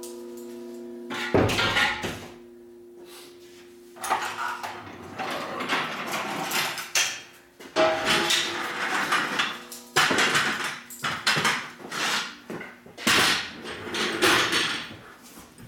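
Irregular clanks, scrapes and knocks of shop equipment being handled, starting about four seconds in.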